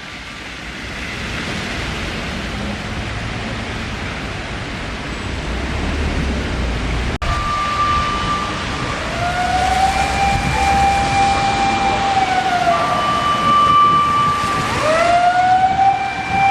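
Road traffic noise with a heavy vehicle's low rumble. After a cut about seven seconds in, a Japanese fire-service emergency vehicle's electronic siren sounds: a steady high tone alternates with a lower wail that swoops up, holds for a few seconds and falls away, repeating.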